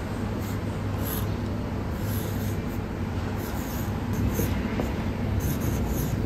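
Steady low hum, like room machinery or ventilation, with short scratchy strokes of a felt-tip marker writing letters on a textured painted wall.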